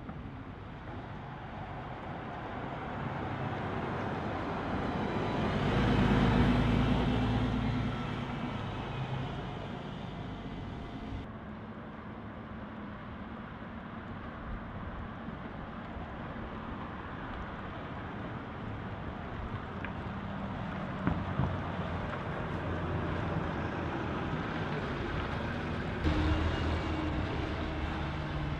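Single-deck city buses driving past one after another, the engine and tyre noise rising and falling as each goes by. The loudest pass, with a low engine drone, comes about six seconds in; another bus goes by close near the end.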